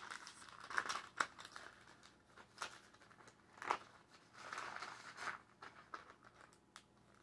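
Clear plastic zip-top bag and folded paper crinkling and rustling as papers are pushed into the bag, faint and on and off, with a few sharper crackles.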